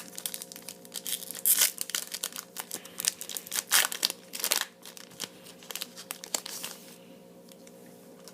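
A Yu-Gi-Oh! booster pack's foil wrapper being torn open and crinkled: a dense run of rips and crackles that dies away after about seven seconds.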